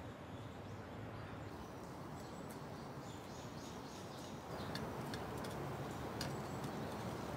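A small hand trowel patting and scraping loose soil into a mound, a few sharp scrapes from about halfway through. Faint bird chirps sound over quiet outdoor ambience.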